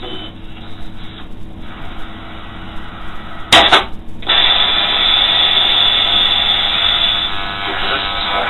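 Grundig Yacht Boy 450 shortwave radio being tuned between stations: weak, broken signal, then a sharp click about three and a half seconds in. After the click comes loud static hiss with a steady high whistle, which stops after about three seconds while the hiss goes on.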